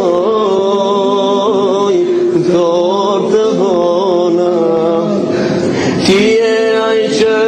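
A man's voice singing a slow melody into a microphone, holding long notes with ornamented, wavering turns, with a short break for breath about five seconds in.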